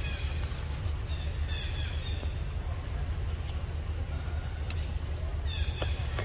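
Forest ambience: a steady high insect drone with short falling chirps every second or so, over a steady low rumble.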